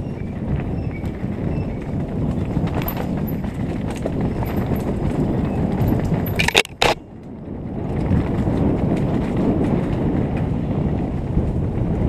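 Mountain bike descending a rocky, rooty dirt trail, heard from a helmet camera: a continuous rumble and rattle of tyres and bike over the rough ground. A little past halfway come two sharp knocks, then a brief quieter moment before the rumble resumes.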